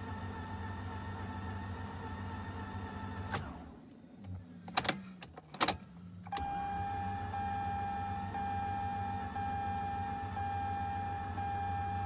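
Mazda RX-8's Renesis rotary engine cranked by its starter motor, turning over slowly without firing, in two long cranks with a few sharp clicks between them. The owner suspects the slow cranking comes from a discharged battery.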